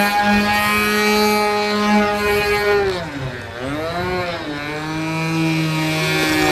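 Radio-controlled model airplane's propeller engine running in flight with a steady drone. About three seconds in, the pitch dips and wavers, then settles at a lower note.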